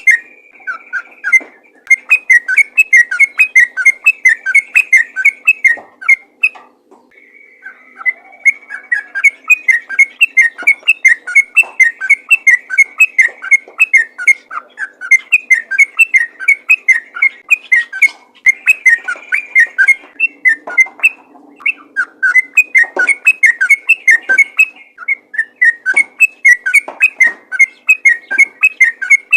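Yellow-vented bulbul singing a fast, continuous run of short whistled notes with a few longer held whistles, breaking off briefly about seven seconds in.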